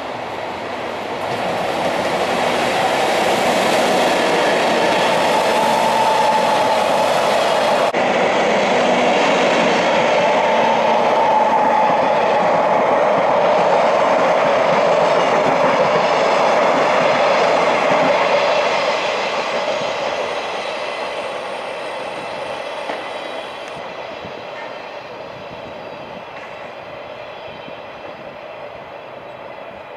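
EF64 electric locomotive hauling six empty Koki container flatcars through a station without stopping: steady wheel-on-rail noise that swells as the train arrives, stays loud while the wagons pass, and fades over the last third as it draws away.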